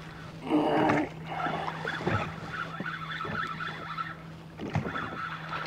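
Fishing reel being cranked while fighting a hooked trout, a rough, ticking whir that pauses briefly near the end. A short loud burst about half a second in.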